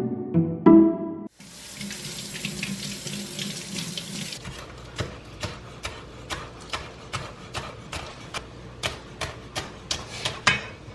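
A kitchen tap runs for about three seconds and shuts off. Then comes a run of sharp, even knocks, about three a second, for about six seconds.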